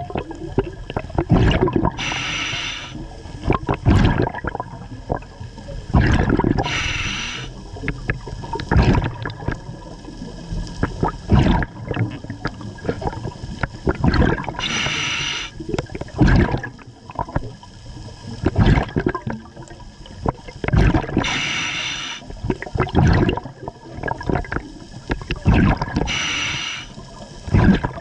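Scuba diver breathing through a regulator underwater: a hiss on each inhale, five times over the stretch, and bursts of exhaled bubbles gurgling and rumbling between them.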